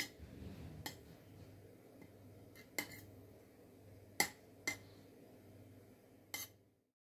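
Metal spoon spreading sauce over pizza dough on a metal pan, faint scraping broken by about six light clinks of the spoon. The sound cuts off to silence near the end.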